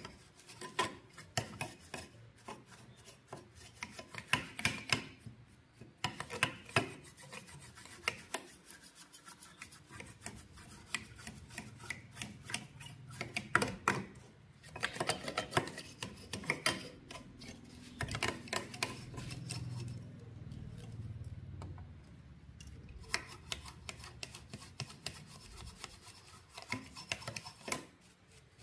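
Rubbing and rasping strokes in irregular runs, with scattered clicks and knocks, as of hand work scraping or scrubbing.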